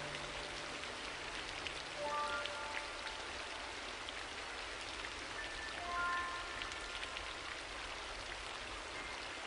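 Background music: a few soft, short melodic notes over a steady, crackling rain-like hiss.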